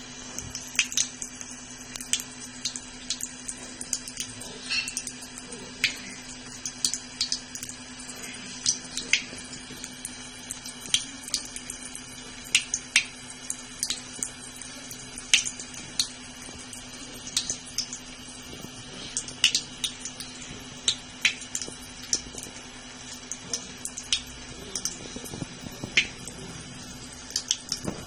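Tap water running steadily into a sink, with a low hum, broken by many short, irregular splashes as a Birman cat paws at the stream trying to scoop water to drink.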